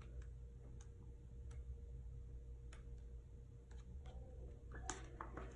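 Faint small clicks, about half a dozen at irregular intervals, over a low steady hum, with a cluster of slightly louder ones near the end.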